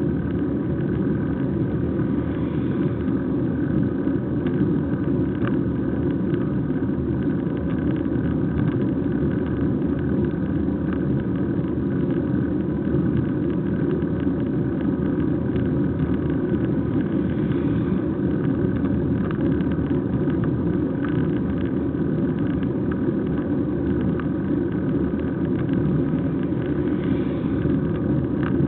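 Steady rushing wind and tyre noise from a bicycle rolling along a tarmac road, picked up by a camera riding on the bike, with a few faint steady whining tones on top.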